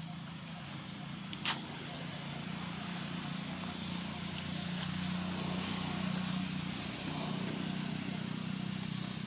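A motor engine running steadily with a low hum, growing louder over the first few seconds and then holding level. A single sharp click comes about one and a half seconds in.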